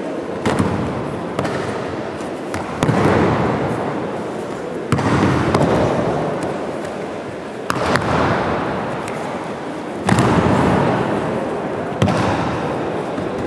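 Repeated aikido breakfalls: bodies slamming onto tatami mats as a partner is thrown, about seven impacts spaced one to three seconds apart, each echoing through a large sports hall.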